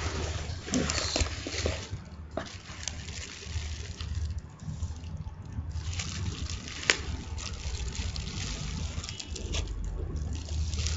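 Plastic bubble wrap and a cardboard shipping box being handled and unwrapped: irregular crinkling and rustling with scattered sharp clicks, one louder snap about seven seconds in, over a steady low hum.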